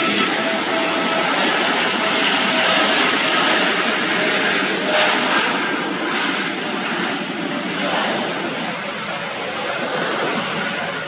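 Airliner passing close by at the airport: a loud, steady engine rush with a high whine. The sound slowly fades over the second half.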